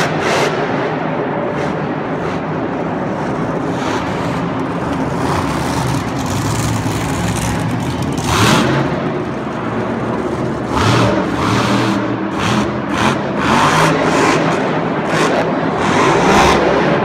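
Monster truck engine revving hard in surges, its pitch rising and falling as the truck wheelies over crushed cars and bounces across the dirt. Several sudden loud bursts cut in about halfway through and then repeatedly toward the end.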